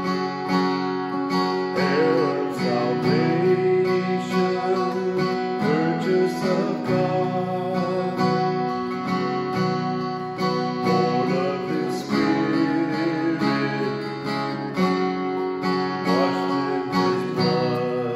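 Acoustic guitar strummed steadily as accompaniment to a worship song.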